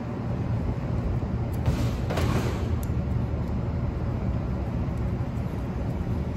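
A brief hiss of an aerosol WD-40 spray about two seconds in, over a steady low rumble of running machinery.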